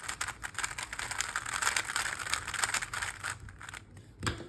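DaYan Tengyun 3x3 speed cube being turned quickly: a dense run of small plastic clicks and rattles that dies away about three and a half seconds in. A short low sound follows near the end.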